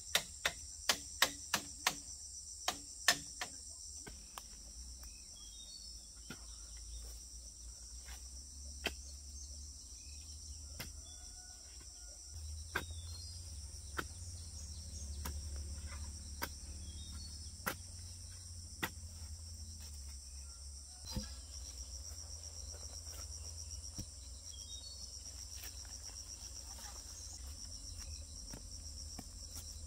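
Steady, high-pitched insect chorus. A quick run of sharp knocks in the first three seconds, then a few single knocks.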